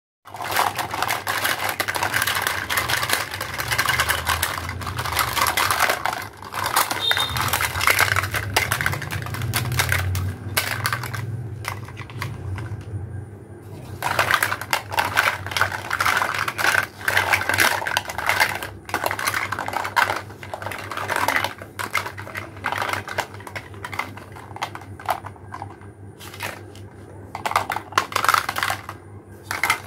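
Hollow plastic toy fruits and vegetables clattering and clicking against each other as they are handled, a dense run of small knocks with a short lull a little before halfway.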